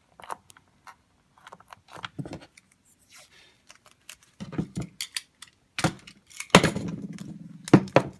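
Black vinyl electrical tape being pulled off the roll in short rasping rips and wound around a wire splice, among small clicks and rattles of handling the wires; the longest, loudest rip comes about two-thirds of the way through.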